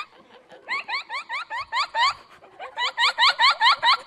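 A young woman laughing hard in high-pitched, rapid 'ha-ha-ha' runs, three bursts with short breaks for breath between them.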